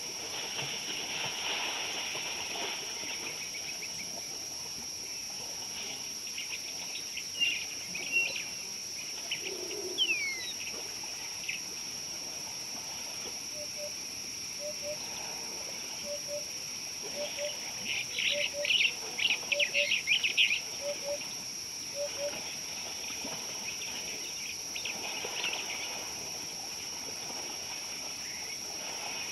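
Wild birds chirping and calling over a steady high-pitched hiss. Through the middle a soft two-note call repeats roughly every 0.7 seconds, and a flurry of sharp chirps about two-thirds of the way in is the loudest part.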